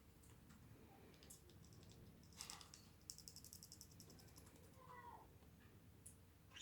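Near silence with faint small sounds from an African grey parrot: a short noisy sound about two seconds in, then a quick run of high clicks for about a second, and a brief falling whistle near the end.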